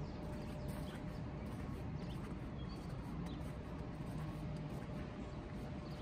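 Steady outdoor city ambience: a low rumble of distant traffic, with a few faint, short, high chirps in the middle.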